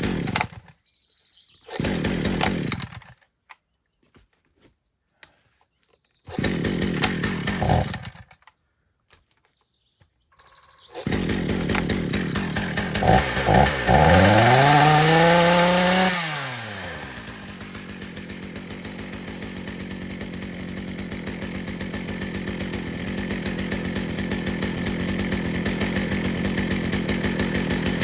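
Two-stroke chainsaw, hard to start: it fires briefly and dies three times, then catches about eleven seconds in. Once it catches it revs up and back down, then settles into a steady idle.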